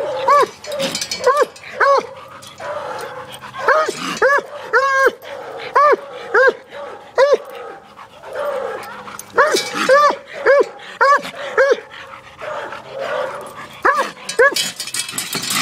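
Walker coonhound barking hard at a raccoon in a wire trap: short, sharp barks fired in quick runs of several at a time, with brief pauses between the runs.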